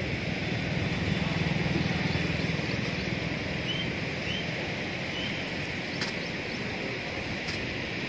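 Steady rush of floodwater in the swollen Munneru river, with a low engine hum in the first few seconds and three short high chirps around the middle.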